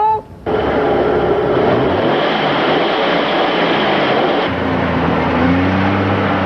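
A Jeep's engine running as the Jeep drives off, under a loud rushing noise. About four and a half seconds in, the engine's pitch rises and falls.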